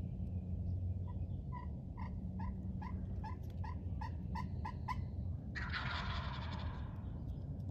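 A run of about ten short, evenly spaced turkey yelps, then a wild turkey gobbler gobbling once, a rattling gobble lasting over a second.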